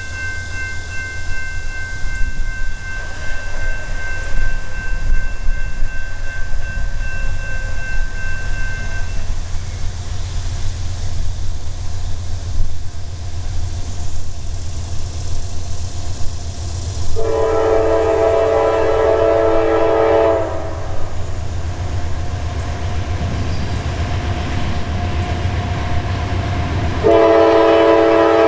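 Locomotive air horn of an approaching Norfolk Southern GE AC44C6M sounding a chord twice: one blast of about three seconds starting roughly 17 seconds in, and a second starting a second or so before the end and still sounding. Under it runs the low steady rumble of the approaching diesel locomotives.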